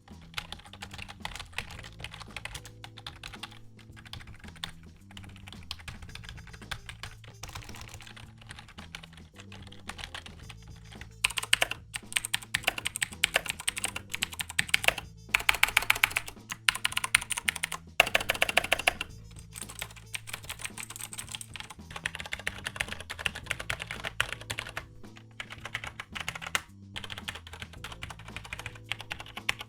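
Typing on computer keyboards as sound samples comparing mechanical key switches with rubber-dome keys: a steady run of key clicks, which turns louder and sharper about eleven seconds in and softer again near nineteen seconds. Background music plays underneath.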